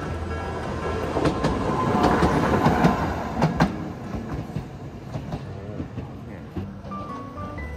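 A Tokyo Sakura Tram (Toden Arakawa Line) streetcar running past on its rails, growing to its loudest two to three seconds in and then fading, with a few sharp clacks of the wheels over the rail joints.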